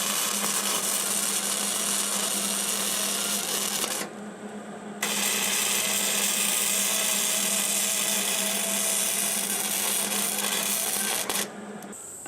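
MIG welder arc crackling as a weld bead is laid along the steel wheel rim of a tractor to seal an air leak, in two runs: the first stops about four seconds in, the second starts about a second later and stops shortly before the end. A steady low hum runs underneath.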